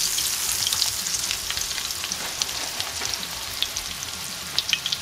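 Crinkle-cut french fries deep-frying in hot oil in a cast-iron skillet, just dropped in: a steady, dense sizzle with many small crackling pops.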